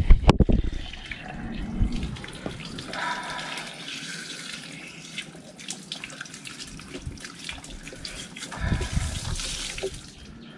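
Water spurting and splashing from the outlet of a full concrete water tank as the broken PVC pipe thread is worked out and a tap pushed in, with a few loud knocks right at the start. The water noise grows louder about eight and a half seconds in.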